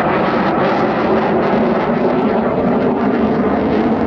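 Fighter jet's engine noise, loud and steady, as the jet banks through a display manoeuvre.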